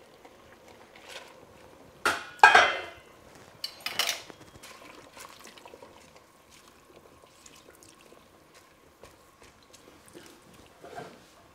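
Metal clatter and clinks against a stainless steel pot as savoy cabbage leaves are pushed down into boiling water with metal tongs to blanch them. A loud, ringing clang comes about two seconds in, another clatter follows about four seconds in, and after that there are only light clicks.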